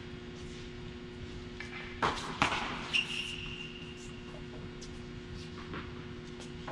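Tennis ball being struck and bouncing on the court: a few sharp knocks about two to three seconds in, followed by a short high-pitched squeak, over a steady low hum.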